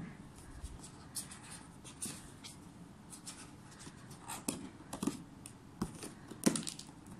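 Hands handling cardboard toy boxes: light scrapes, taps and rustles of the packaging, with a few louder knocks in the second half.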